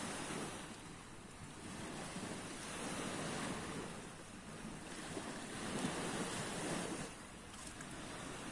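Small Black Sea waves washing onto the shore. The surf swells and eases about every three seconds.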